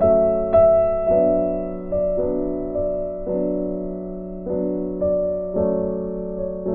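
Background piano music: slow, gentle notes and chords, each struck and left to fade, a new one every half second to a second.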